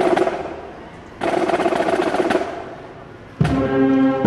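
Edited-in music and sound effects: two sudden noisy crash-like hits, each dying away over about two seconds, then a tune with held notes starting about three and a half seconds in.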